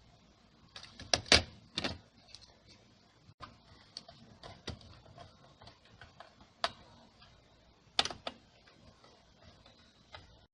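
Scattered clicks and light knocks of metal and plastic server parts being handled while fitting a CPU into a Dell PowerEdge R720, with a quick cluster about a second in and a sharp click near eight seconds.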